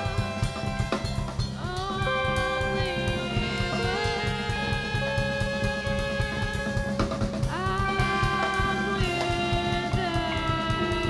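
Live jazz ensemble playing: busy drum kit under a band of keyboard, guitar, bass and saxophones, with long held melody notes that slide up into pitch.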